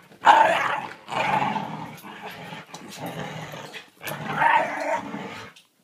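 A Shiba Inu and a Labrador retriever growling in play as they tug on a toy between them. The growls come in rough bursts, loudest just after the start and again about four and a half seconds in, then stop shortly before the end.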